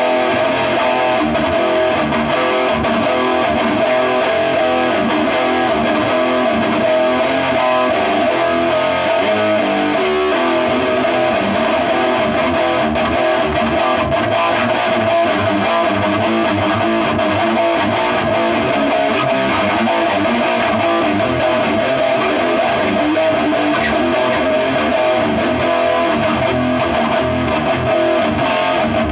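Electric guitar played continuously through a Crate Blue Voodoo amp and a cab loaded with two Eminence 12216 speakers wired in an X pattern.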